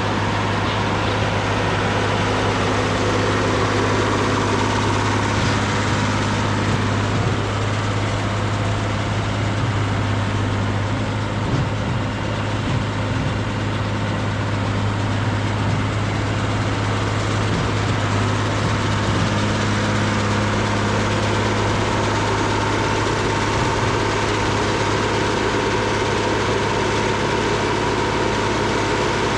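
Deutz D130 06 tractor's six-cylinder air-cooled diesel running steadily, pulling a working John Deere 566 round baler.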